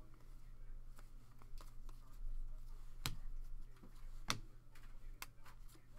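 Trading cards being flipped through by hand: card stock sliding and rustling, with a few sharp clicks as cards snap against each other, the loudest about three seconds in and again just after four seconds.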